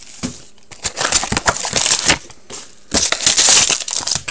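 Plastic shrink wrap crinkling and crackling in the hands as a 2016-17 Upper Deck Ice hockey card box is unwrapped and its cardboard lid opened. It comes in irregular rustling bursts, with the loudest run of crinkling near the end.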